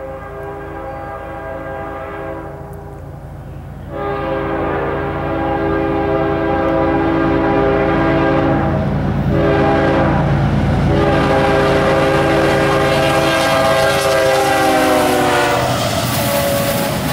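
Diesel freight locomotive's multi-chime air horn sounding the grade-crossing signal, long, long, short, long, getting louder as it approaches. Its pitch drops as the locomotive passes near the end, and the rumble and rattle of the passing train takes over.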